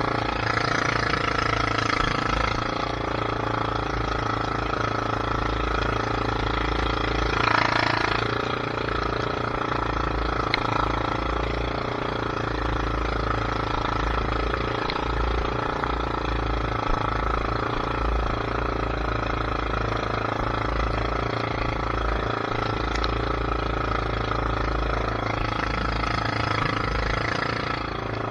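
A steady motor drone runs on without a break, with a brief swell about eight seconds in.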